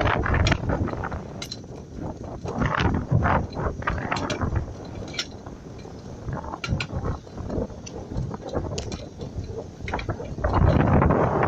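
Irregular mechanical clicking and rattling, louder just after the start and again near the end.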